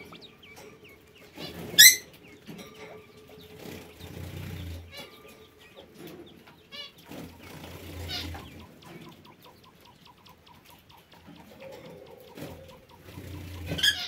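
Aviary birds calling, a mix of short chirps and calls, with one loud, sharp call about two seconds in and another just before the end.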